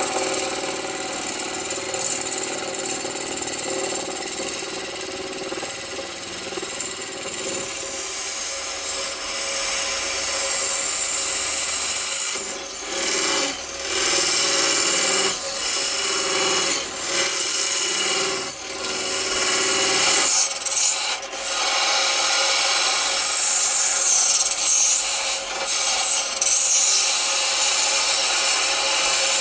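Wood lathe running with a tool held against the spinning banksia-pod-and-resin blank, a continuous rasping hiss over the lathe's steady hum. In the middle it breaks off briefly several times as the tool comes away from the work.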